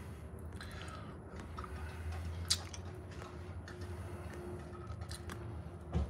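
Low steady hum with a few faint clicks and rustles from the phone being handled close to the microphone.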